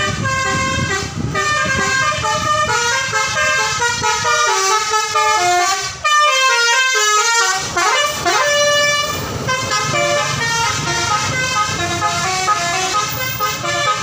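Bus "telolet basuri" multi-tone air horn playing a quick melody of stepped notes over the bus engine's running. About six seconds in, after a short break, the horn plays notes sliding down and then up before the stepped tune resumes.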